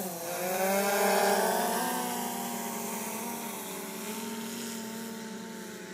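Autel X-Star Premium quadcopter's propellers and motors buzzing in flight, the pitch dipping and rising over the first couple of seconds as the motors adjust, then holding steady. The buzz peaks about a second in and slowly grows fainter.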